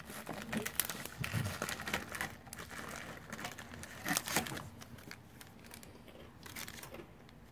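Clear plastic packaging bag crinkling and rustling in the hands as it is opened and a small charm is taken out. The crackling is irregular and busiest in the first few seconds, with a louder crinkle about four seconds in, and it grows sparser near the end.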